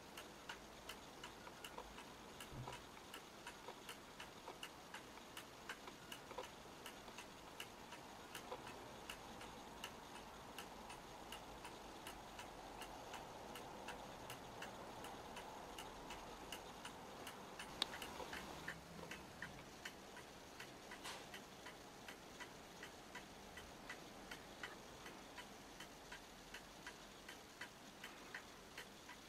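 Restored fusee clock movement running, its escapement ticking steadily as the pendulum swings. One louder click about two-thirds of the way through.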